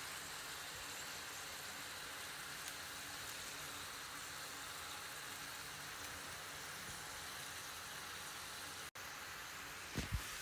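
Fish fillets sizzling steadily as they shallow-fry in oil in a pan. Near the end there are a couple of short knocks.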